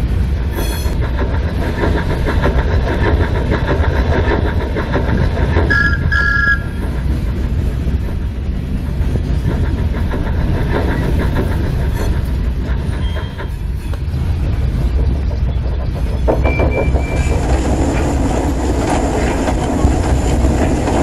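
Model trains running on the track: wheels clicking and rattling along the rails over a steady low rumble, with a brief high two-note tone about six seconds in.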